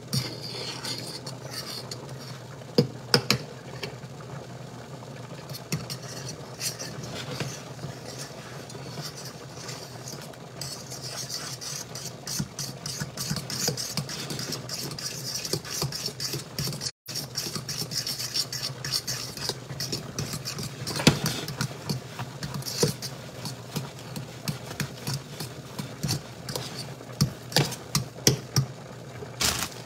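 Metal spoon stirring thick, boiling corn grits in a stainless steel pot, with frequent scraping and sharp clicks of the spoon against the pot's sides. A steady low hum runs underneath.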